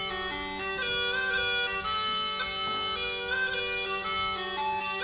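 Northumbrian smallpipes playing a melody on the chanter over a steady, unbroken drone.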